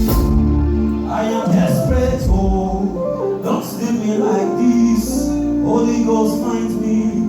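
Slow worship music: sustained chords over a steady low bass, with a voice singing along.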